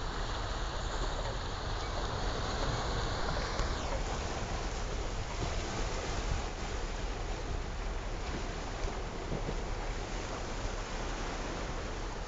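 Sea waves washing onto a rocky shore, a steady rushing noise, with wind rumbling on the microphone. A higher hiss over it fades out about three and a half seconds in.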